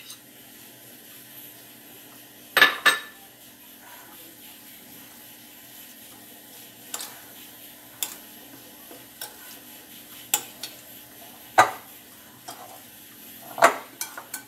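Metal fork clinking and tapping against a glass bowl while mixing potato salad. The clinks are scattered, with the loudest about two and a half seconds in and two more near the end.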